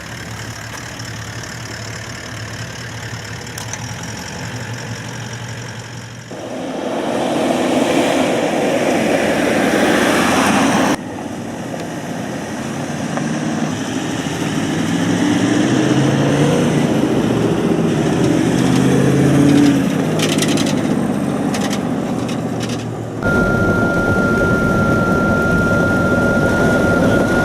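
4x4 vehicle driving on a gravel road: engine and tyre noise, in several segments that change abruptly. A steady high tone joins near the end.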